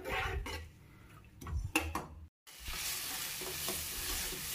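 Wet spice paste frying in hot oil in a kadhai, sizzling as a metal spatula stirs and scrapes through it. The sound cuts out briefly just past halfway and returns as a steady, louder sizzle.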